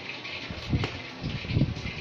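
Dry flour coating pouring and sliding from a plastic tub into a stainless steel tray, scraped out with a spoon: a steady soft hiss with a few low knocks and a short click.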